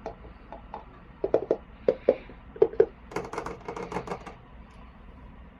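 Small toy figures and their packaging being handled: a series of light, sharp knocks and clicks, then about a second of quick clattering near the middle before it stops.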